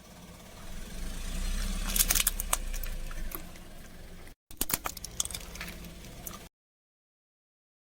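A car's engine running low as a tyre rolls over and crushes crunchy objects, with sharp crackling and snapping about two seconds in and again around five seconds. The sound cuts off abruptly to silence about six and a half seconds in.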